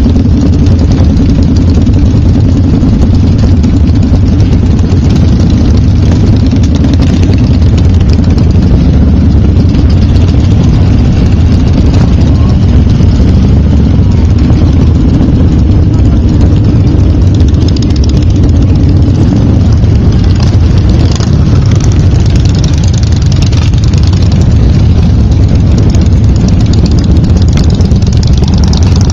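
Motorcycle engines running steadily at low speed in a slow procession, loud and close, the nearest bike's engine dominating.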